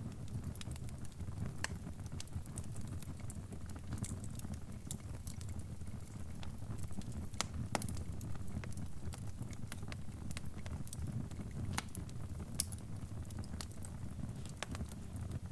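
Wood fire crackling: a steady low rumble with sharp pops and snaps at irregular intervals, a few of them louder than the rest.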